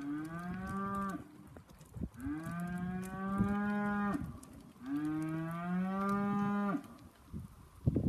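Black Angus heifers mooing: three long, steady moos, slightly rising in pitch, the first already under way and ending about a second in, the other two about two seconds each. A sharp knock near the end.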